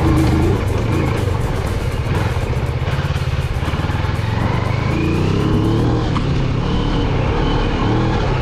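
Moto Morini X-Cape 650's parallel-twin engine running steadily at low speed on a rough off-road track, with a faint rising whine in the middle as it picks up.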